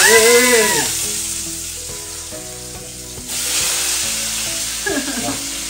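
Sausages frying in hot oil, a loud steady sizzle. It eases over the first couple of seconds and grows louder again about three seconds in.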